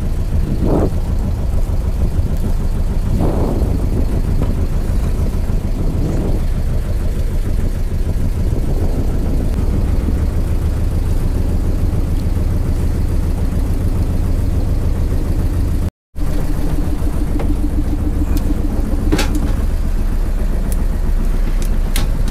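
Fishing boat's inboard engine running steadily, a low drone. The sound drops out for a split second about sixteen seconds in.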